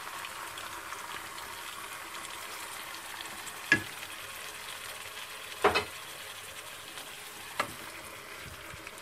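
Chicken and potatoes frying in a pan with freshly added tomato juice and chopped tomato, a steady quiet sizzle, while a wooden spatula stirs them. Three sharp knocks of the spatula against the pan come about two seconds apart.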